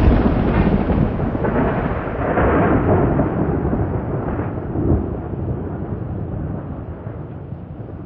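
Thunder rumbling, loud at first, then rolling on and slowly fading away over several seconds.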